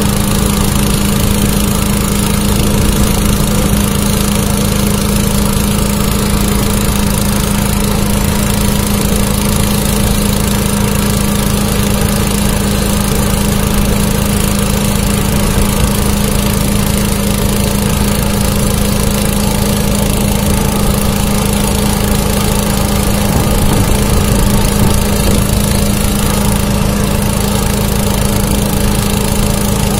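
Rail-welding equipment running steadily: a constant low hum under a loud, even hiss.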